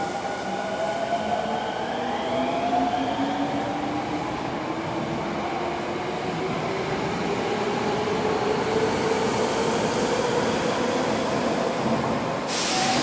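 Osaka Metro 21 series electric train pulling out of the station, its motors whining in several tones that climb slowly in pitch as it gathers speed, over steady wheel-on-rail noise. A short rush of noise comes near the end as the cars pass at speed.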